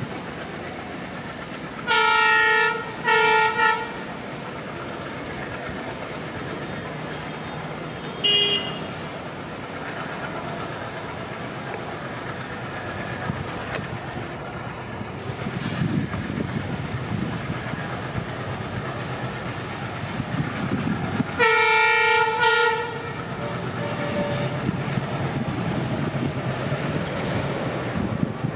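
Twin WDM3A diesel locomotives hauling an express train as it approaches: a steady low engine-and-rail rumble that grows louder as the train nears. The horn sounds two blasts about two seconds in, a short toot around eight seconds, and a longer blast about 21 seconds in.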